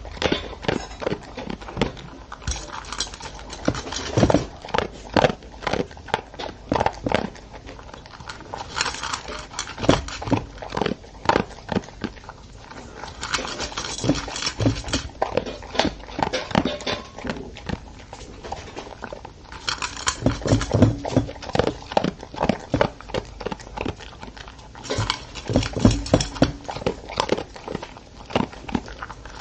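Old English Sheepdog eating dry kibble from a stainless steel bowl: irregular runs of quick crunching and chewing, with clicks of kibble and muzzle against the metal bowl.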